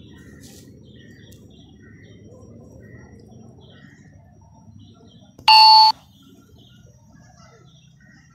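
A single loud electronic chime, about half a second long, from the DGPS survey kit, sounding about five seconds in. It comes as the base station's five-reading position averaging finishes.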